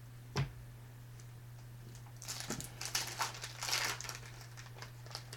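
Wrapper of a pack of football trading cards being torn open and crinkled, in a cluster of crackly bursts in the second half, after a single click about half a second in. A steady low hum runs underneath.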